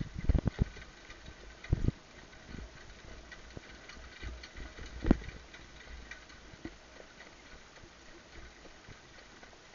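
Harness horse jogging on a dirt track with a sulky, heard from the driver's seat: hoofbeats and knocks from the harness and cart. The knocks are heavy in the first two seconds, there is a sharp one about five seconds in, and then it goes quieter.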